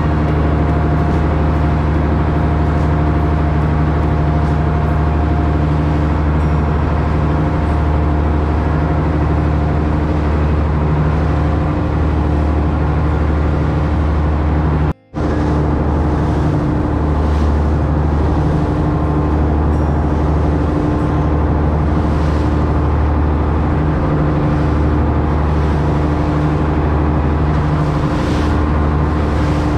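Fishing boat's engine running steadily while the boat is underway, a constant drone with the rush of water from the hull and wake. The sound cuts out for a split second about halfway through.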